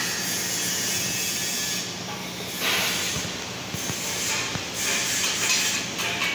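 Workshop background noise: a steady low hum under a hiss that swells at times, about three and five seconds in.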